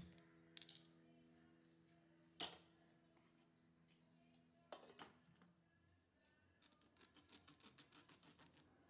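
Near silence with a few faint clicks, then near the end a quick run of faint ticks and scrapes as a kitchen knife cuts into a raw green plantain on a wooden chopping board.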